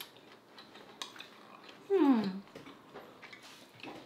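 Light clicks of chopsticks against plates and the grill pan while eating, with one short voice-like sound falling in pitch about two seconds in.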